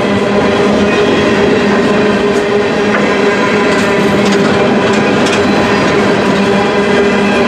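Empty coal hopper cars of a freight train rolling past: a loud, steady rumble of steel wheels on the rails with a constant low hum and a few faint knocks.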